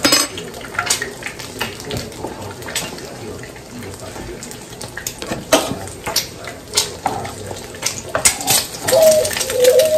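Food frying in a pan on a gas stove: a steady sizzle with crackles, and clinks of a plate and a metal spoon as food is served from the pan.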